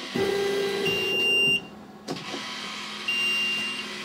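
Laser cutter's motor-driven gantry running in short runs. A hum starts just after the beginning and stops about a second and a half in, a high steady whine comes and goes twice, and there is a single click about two seconds in.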